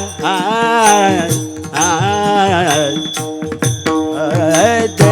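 Marathi devotional kirtan singing: one voice draws out long, ornamented vowel phrases over a steady drone, with taal hand cymbals clinking throughout.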